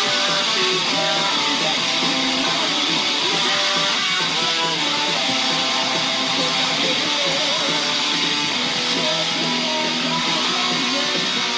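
Distorted electric guitar playing a heavy metal part over a full band backing track, held notes and riffing with no vocals.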